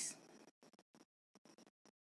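Near silence with faint, brief scratches of a marker writing a number on a whiteboard.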